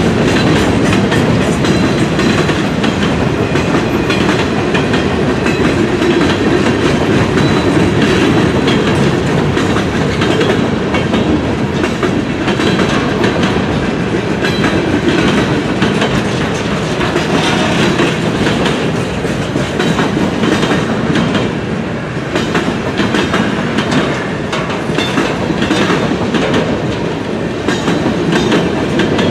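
Freight train's cars rolling past: a steady, loud rumble of wheels on rail with repeated clicking as the wheels cross rail joints.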